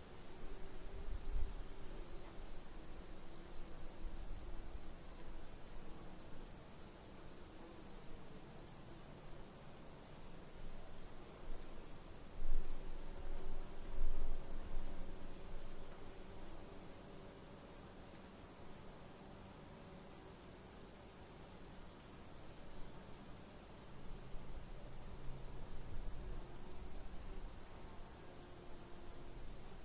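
Night insect chorus: a steady high-pitched trill with crickets chirping on top in a fast, even rhythm. A couple of low bumps come near the middle.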